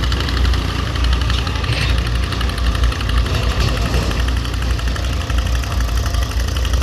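Diesel engine of a tractor or backhoe loader running steadily, with a fast, even firing beat.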